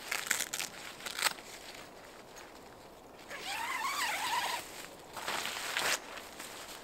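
Tent door zipper being pulled open with rustling of the tent's nylon fabric: a few short scratchy strokes in the first second, then a longer zip about three seconds in and another brief one near the end.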